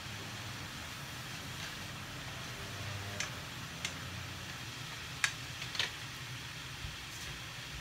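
Bean sprouts and pork sizzling in a frying pan, a steady hiss over a low hum, as they are stir-fried with chopsticks. A few sharp clicks of the chopsticks against the pan come about three seconds in and again around five seconds.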